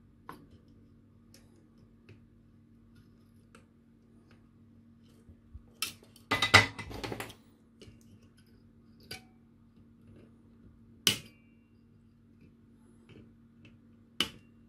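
Small side cutters snipping the protruding wire leads on a circuit board: a few sharp clicks, seconds apart, with a louder burst of clattering handling noise about halfway through. A faint steady hum sits underneath.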